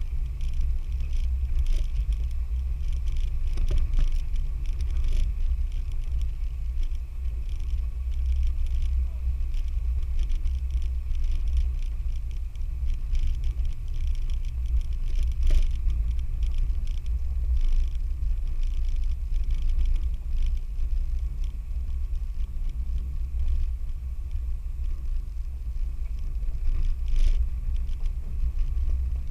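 4x4 vehicle engine and drivetrain running with a steady deep rumble while driving an off-road trail, with scattered light knocks and rattles.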